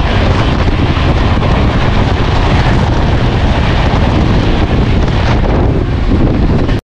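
Steady loud rush of rail and wind noise from a moving express train, recorded at an open coach doorway with wind buffeting the microphone, as another passenger train, the Saharsa–Bandra Terminus Hamsafar Express, passes on the adjacent track.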